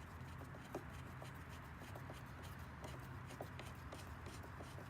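Faint, irregular small clicks and scraping as a screw is driven in to refasten a motorcycle's plastic body panel, over a steady low hum.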